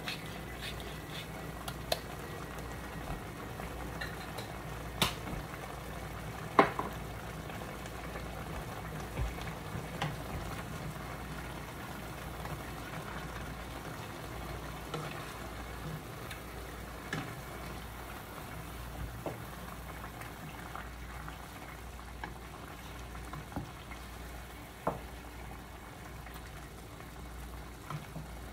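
Menudo stew bubbling steadily in a pot on the stove, with scattered sharp clicks, the loudest about five, six and a half and twenty-five seconds in.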